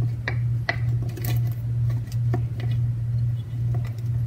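A steady low hum with a few scattered light clicks and taps, from kitchen utensils knocking against a can of condensed soup.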